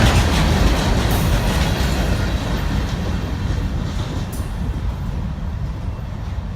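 Freight cars of a CSX rock train rolling past on steel rails, a steady rumbling clatter that slowly fades away.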